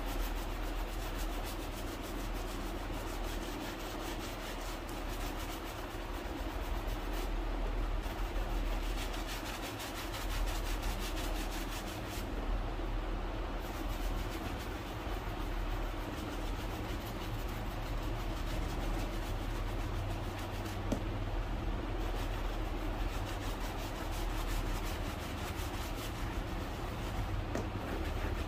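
Rapid, continuous rubbing strokes on a leather shoe as it is buffed during polishing, over a steady low rumble.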